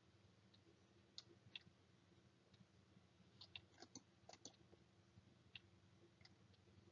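Near silence, broken by a dozen or so faint, short clicks scattered irregularly through it.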